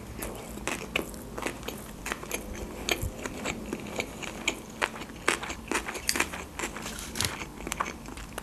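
Close-miked chewing of a mouthful of sushi roll: a run of small wet mouth clicks and crackles, several a second and irregular.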